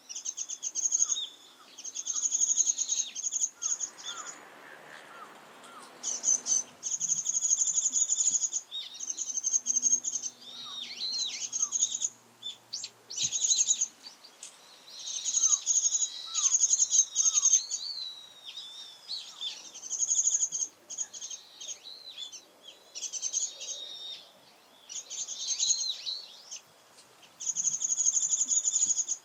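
Warbling white-eye (Japanese white-eye) singing, repeating rapid, high twittering phrases of a second or two each with short pauses between.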